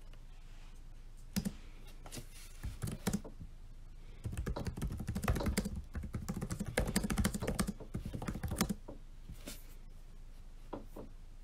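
Typing on a laptop keyboard: a few scattered keystrokes, then a fast, continuous run of typing from about four seconds in until nearly nine seconds, followed by a couple of lone key taps.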